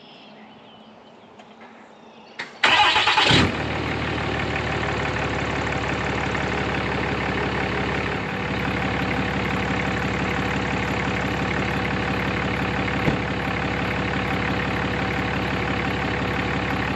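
An engine is started: a click, a brief loud burst as it cranks and catches about three seconds in, then it settles into a steady idle.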